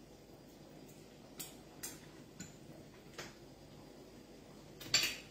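Faint, scattered light clicks of a fork against a plate, then a louder knock near the end.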